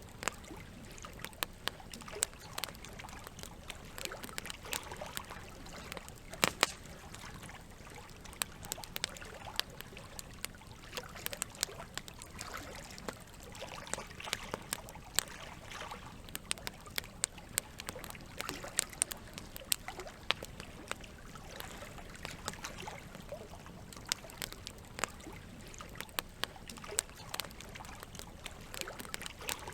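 Campfire crackling, with frequent irregular sharp pops and snaps, over a steady trickle of running water.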